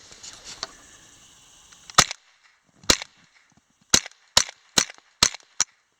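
Savage Model 64 semi-automatic .22 LR rifle firing seven shots. The first two come about a second apart, then five follow quickly, about two a second. The rifle is cycling properly through this string after a hand-loaded first round.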